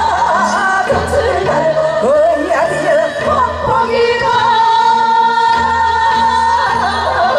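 A group of women singing a Korean folk song together into microphones over an amplified accompaniment, holding one long note through the middle.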